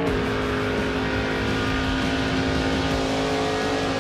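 1969 Camaro race car's 2,000-horsepower boosted engine running hard at high speed in a steady drone, over a rushing wind and tyre noise.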